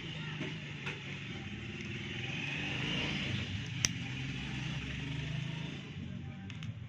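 A motor vehicle engine passing by, its sound swelling to a peak mid-way and fading, with one sharp click about four seconds in.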